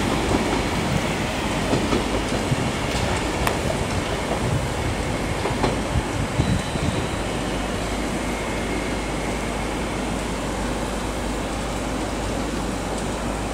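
Northern multiple unit running away over the station tracks: wheel rumble with clicks and knocks over the rail joints for the first several seconds, then settling into a steadier, slightly fainter rumble as it draws off.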